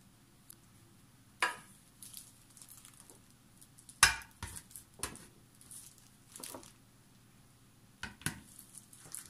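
Glass pudding jars being set down on a countertop and into a metal tray: a series of about seven short, sharp clinks and knocks, the loudest about four seconds in.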